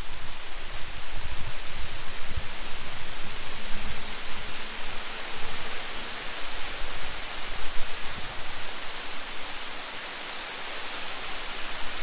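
Small waterfall running strongly down a rock face onto rocks: a steady rushing hiss of falling water.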